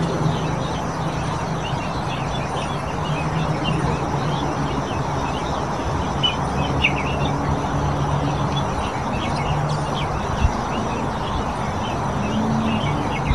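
Outdoor ambience of birds chirping, many short scattered calls, over a steady rushing background noise.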